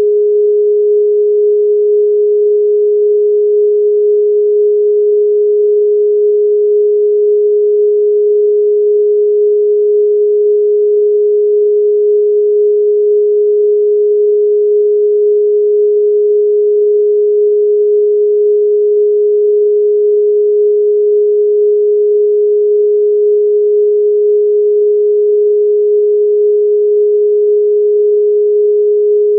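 A steady pure sine-wave tone pitched a little below 500 Hz, held unchanging throughout at a constant level, played as a 'protection frequency'.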